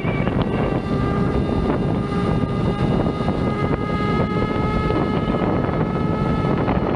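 Leaperkim Veteran Patton electric unicycle riding on snow: its tyre makes a continuous low rumble with scattered short clicks, over a steady high whine from the hub motor.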